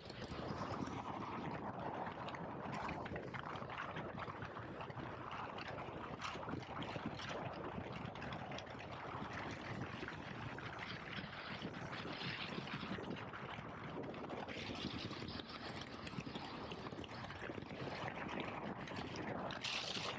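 Onboard sound of a KTM 1290 Super Adventure S motorcycle underway: a steady rush of wind and road noise with the engine running underneath.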